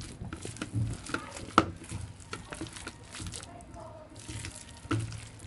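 A hand squeezing and mixing thick gram-flour batter with mashed potato and soya chunks in a bowl: irregular wet squelches and sharp clicks, the loudest about a second and a half in.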